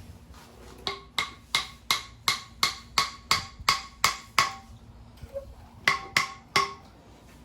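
Hammer blows driving a rear suspension inner bushing into place, each strike ringing briefly. About eleven steady strikes at roughly three a second, a short pause, then three more.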